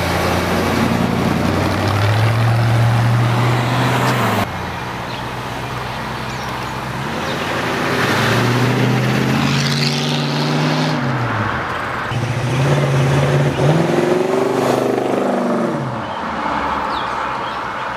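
A string of classic and modified car engines, starting with a classic Ford F-100 pickup, each revving as it pulls away and accelerates past, its note rising and then falling. The sound cuts abruptly from one car to the next several times.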